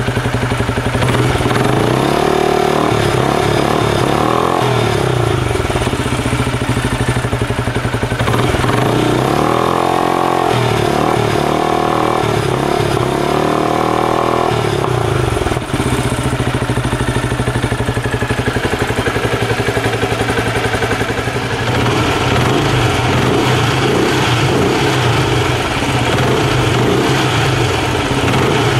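Benelli Imperiale 400's single-cylinder engine running, heard at its exhaust, with the throttle blipped so the revs rise and fall, first around two to five seconds in and again from about nine to fifteen seconds in.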